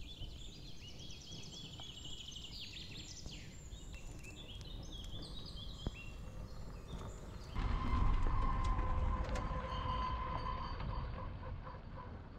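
Songbirds singing, many short repeated phrases, over faint outdoor background. About seven and a half seconds in, it cuts abruptly to a louder bus engine rumble with a steady whine, which eases off toward the end.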